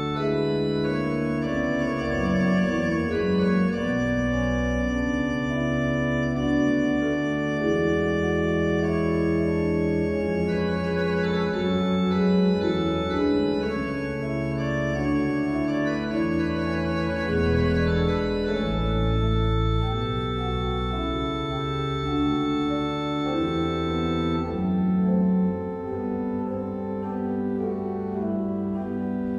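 Church pipe organ playing a many-voiced piece of held chords over a moving pedal bass. About 24 seconds in, the highest notes drop away and the sound becomes thinner.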